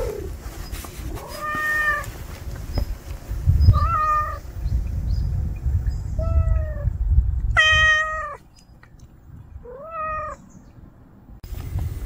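Hungry stray cat meowing five times, about one call every two seconds, the fourth call the longest and loudest. A low rumble sits underneath the middle calls.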